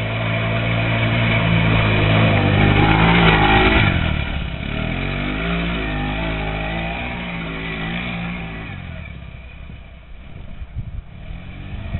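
Off-road buggy's small engine running hard, loudest as it comes up close about three to four seconds in. It then revs up and down as it climbs over a dirt mound, and fades as it drives away.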